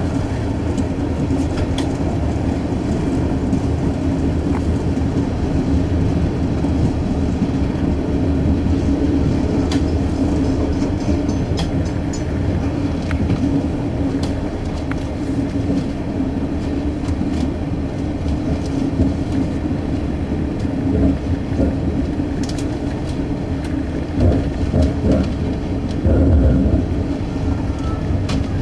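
Adelaide suburban diesel railcar running at speed, a steady rumble of engine and wheels on rail heard from inside the cab, with a few louder bumps near the end.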